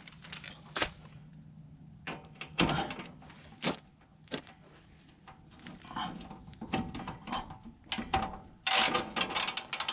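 Metal tools clinking and knocking against a BMW F20's rear suspension as a bolt is wiggled with a socket to line it up with misaligned holes. The knocks come singly with pauses between them, then as a quick run of rattling clicks near the end.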